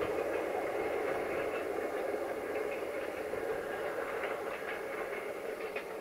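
A diesel-hauled passenger train of double-deck coaches rolling away along the track: a steady rumble of wheels on rails that slowly fades, with a few faint clicks near the end.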